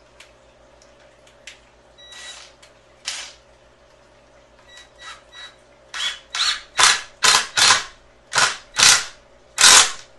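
Cordless drill run in short trigger bursts into a pine 2x4 frame, the work of pre-drilling pilot holes and driving screws. A few faint bursts come first, then about nine much louder ones in quick succession over the last four seconds.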